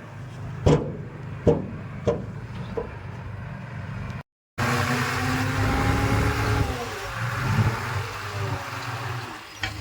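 Heavy earthmoving machinery running, a steady low engine hum with a few sharp knocks in the first three seconds. After a brief dropout about four seconds in, a louder engine with its pitch shifting up and down.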